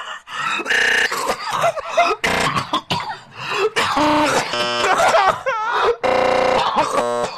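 Distorted, pitch-warped human vocal noises from a meme clip: a string of separate buzzy, honking groans, some with a wobbling pitch.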